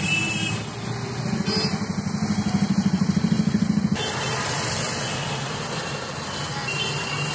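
Engine and road noise heard from inside a moving cab in busy city traffic, with a pulsing engine note between about one and four seconds in.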